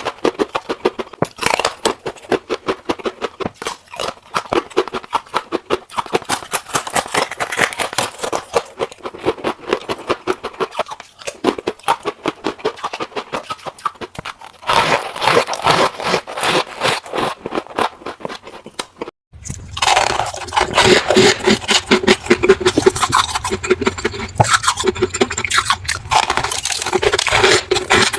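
Frost ice from a refrigerator freezer being scraped and crunched, a dense run of rapid crackling scrapes. It breaks off for a moment about 19 seconds in, then comes back louder.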